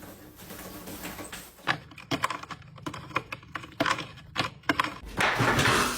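A run of irregular sharp clicks and taps, then a louder rustling noise near the end.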